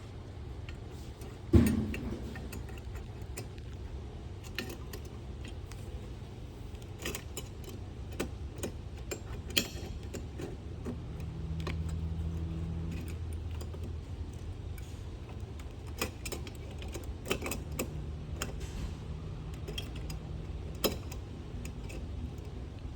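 Scattered small metallic clicks and taps of hand tools and wire being handled during electrical wiring work, with one louder knock about a second and a half in. A low steady hum comes in twice, in the middle and near the end.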